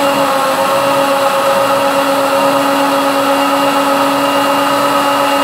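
Electric mixer grinder running at full speed, its stainless steel jar blending curd and water into lassi: a loud, steady motor whine.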